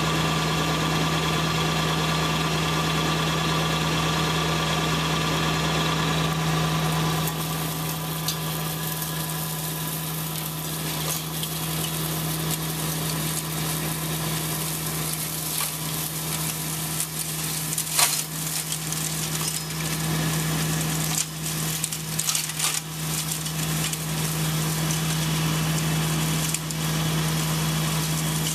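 Kubota B2601 compact tractor's diesel engine running steadily under load, driving a PTO flail mower; its higher whine fades after about a quarter of the way through as the tractor moves off. From then on there are scattered cracks and snaps as the flails chop through tall brush, the sharpest about two-thirds of the way through.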